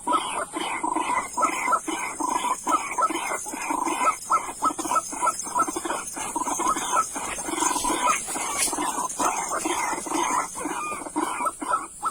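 Birds calling in a rapid, unbroken series of short repeated notes, several a second.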